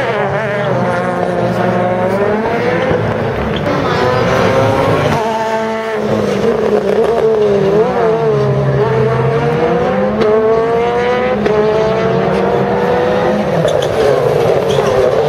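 Rally car engine accelerating hard through the gears. Its pitch climbs and then drops back at each upshift, several times over, with a short lull about five seconds in.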